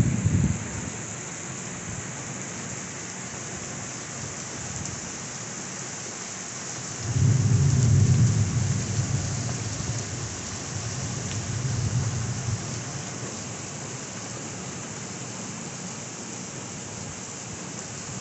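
Heavy thunderstorm downpour hissing steadily on pavement. Rolling thunder swells about seven seconds in and dies away over a few seconds, with a smaller rumble soon after.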